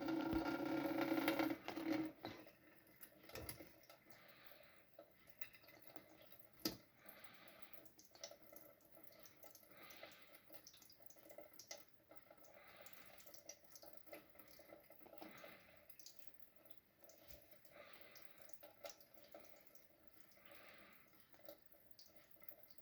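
Water from a tap, with a steady hum that cuts off about two seconds in. Then faint water sounds in the sink: soft splashes every two to three seconds and an occasional sharp click.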